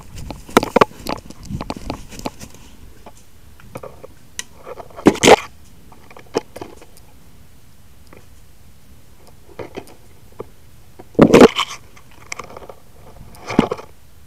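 Crunching and rustling of dry grass, twigs and brush as someone pushes through undergrowth on foot, in short loud bursts with quieter pauses between.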